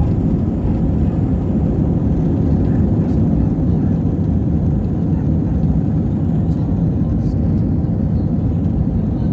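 Cabin noise of an Airbus A320 on its takeoff roll and lift-off: the jet engines at takeoff thrust, heard inside the cabin as a loud, steady, deep rumble.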